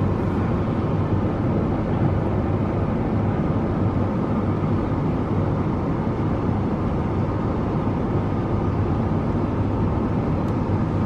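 Wesumat soft-touch rollover car wash machine running over the car, heard from inside the cabin: a steady, even wash noise with a low hum underneath.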